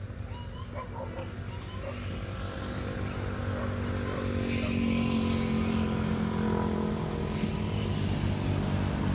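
An engine running steadily, its hum getting gradually louder as it draws nearer.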